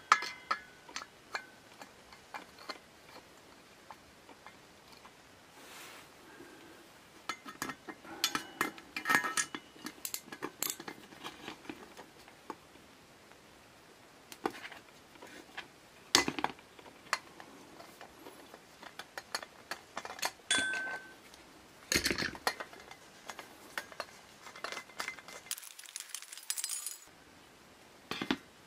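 Metal tools clicking and clinking against a Coleman Peak 1 gasoline stove's fuel tank and valve as a homemade jig and a wrench turn the fuel valve: irregular taps and knocks, a few ringing briefly, with a short rasp near the end.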